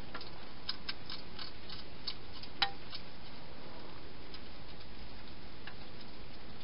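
A hedgehog eating from a bowl inside a plastic feeding box: irregular sharp clicks and ticks, thickest in the first second and a half, with one louder click about two and a half seconds in, over a steady hiss.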